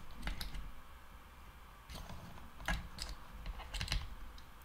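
A few faint, irregular clicks and taps of metal multimeter test probes being set on diode leads and solder joints on a circuit board, with the probe leads shifted between them.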